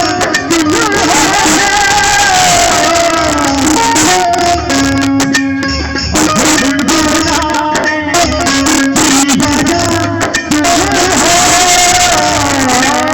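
Music: a voice singing a gliding melody over steady drum beats and instrumental accompaniment.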